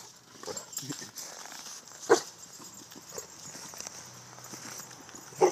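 A boxer dog in boots giving short barks, one loud bark about two seconds in and another near the end, with softer sounds of its booted paws moving on snow in between.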